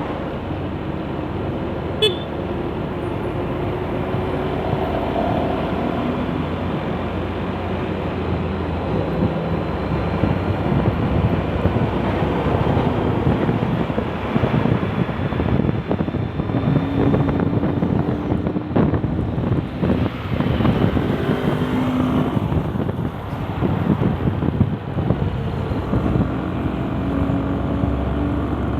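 Busy road traffic: cars and motorcycles passing one after another, their engine tones rising and falling, over heavy wind buffeting the microphone. A single sharp click about two seconds in.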